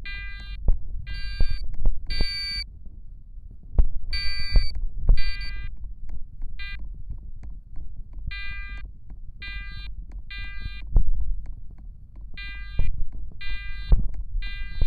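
Fire alarm horns blaring in short half-second blasts grouped in threes, repeating every few seconds: the temporal-three evacuation signal of a building fire alarm in alarm. Low knocks and thumps sound in between.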